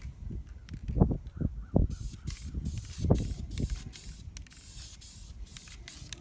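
Spray paint hissing in a run of short bursts from about two seconds in, as paint is laid onto the engine block. A few dull knocks come before and under it.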